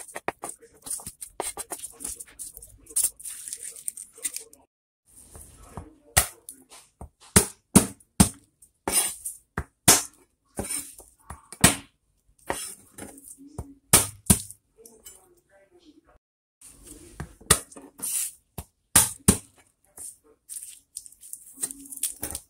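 Garlic cloves being peeled by hand on a cutting board: dry papery skins crackle and rustle, with irregular sharp taps against the board.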